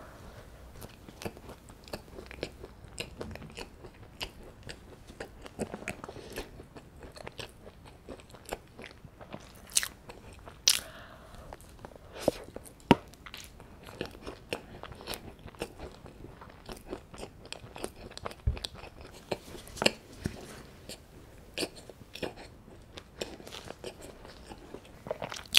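Close-up biting and chewing of a chocolate scone topped with strawberry jam: soft crumbly crunching with scattered sharper clicks.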